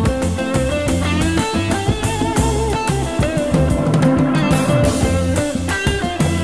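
Background rock music: guitar over bass and a drum kit with a steady beat.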